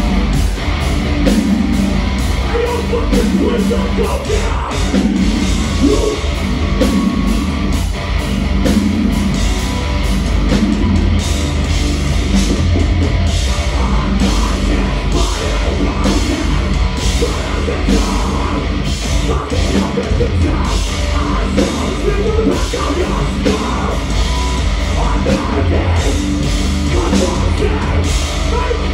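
Metalcore band playing live at full volume: heavily distorted guitars and bass over pounding drums, with a vocalist shouting over it.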